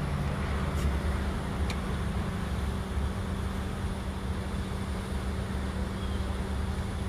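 Steady low rumble of vehicle and road traffic, with a constant low hum underneath.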